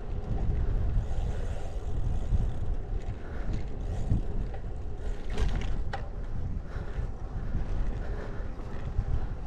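Wind buffeting the microphone of a camera riding on a moving bicycle, a steady low rumble, with a couple of short clicks a little past halfway.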